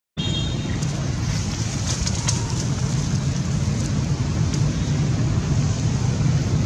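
Steady low rumbling outdoor background noise that cuts in abruptly just after the start, with a few faint clicks around the middle.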